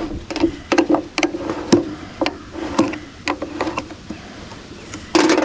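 Metal clicks and taps, about two a second, as the lid of a small metal paint can is worked and pried open with a hand tool on a steel truck tailgate, with a louder clatter near the end.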